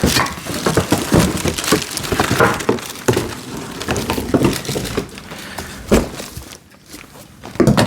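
Cardboard box and packing material crackling and scraping as parts are pulled out of the box, with sharp knocks about six seconds in and again near the end.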